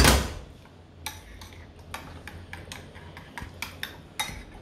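A metal spoon stirring thick corn pap in a glass bowl, clicking against the glass about three times a second as the pap is thinned with hot water. A single loud knock comes at the very start.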